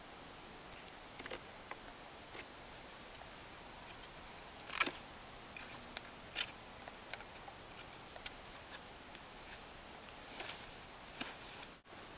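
Knife whittling a wooden stick: scattered short scraping cuts and clicks, the strongest about five and six and a half seconds in.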